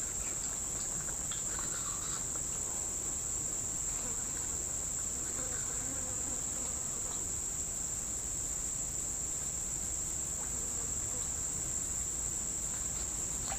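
Steady high-pitched insect drone, one unbroken whine, with faint scattered ticks and rustles beneath it.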